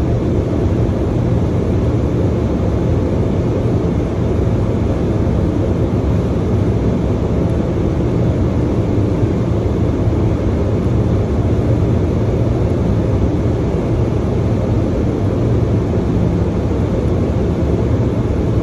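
Loud, steady machinery drone with a low hum, unchanging throughout.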